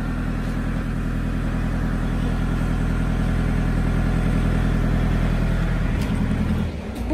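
Vehicle engine idling steadily, growing a little louder over the first few seconds, then briefly dropping away near the end.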